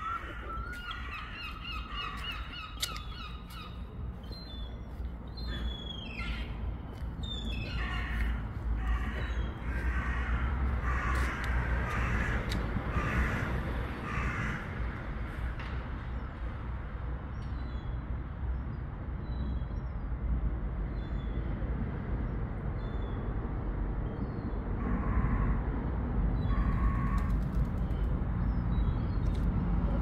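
A gull calling: a run of harsh, pitched calls at the start, a burst of repeated calls a few seconds later, then two more calls near the end. Underneath is a steady low rumble that grows louder toward the end.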